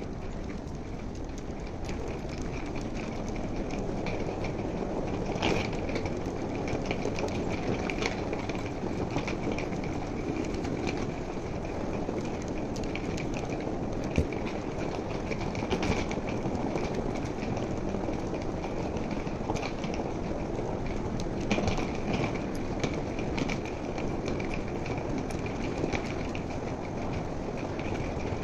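Steady rumble and hum of a large airport terminal hall, with scattered sharp clicks and taps, the sharpest about halfway through.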